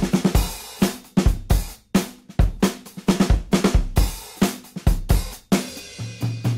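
Background music: a drum kit playing a beat on its own, with kick, snare, hi-hat and cymbal hits. A low held note comes in near the end.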